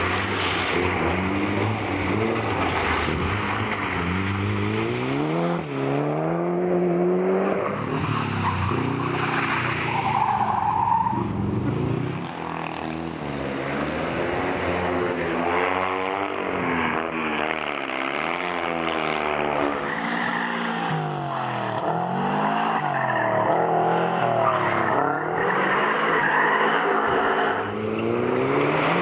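Mitsubishi Lancer Evolution's turbocharged four-cylinder engine revving hard and repeatedly rising and falling in pitch as the car accelerates, shifts and brakes around a tight course, with tyre noise on wet tarmac.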